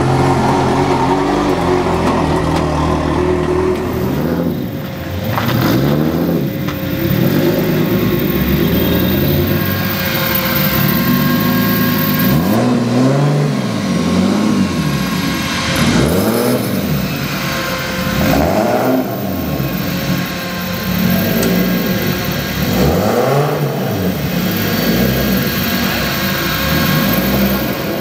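Competition car engines running and being revved: a steady engine note in the first half, then repeated throttle blips, each rev climbing and falling back, roughly every one to two seconds.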